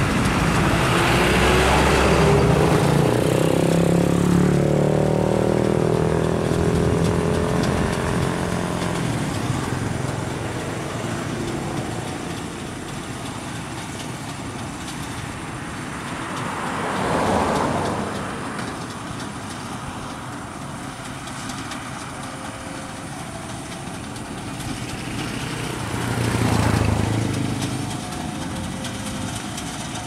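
Rice combine harvester's engine and threshing machinery running steadily while harvesting, loudest in the first several seconds. Vehicles swell past twice, past the middle and near the end.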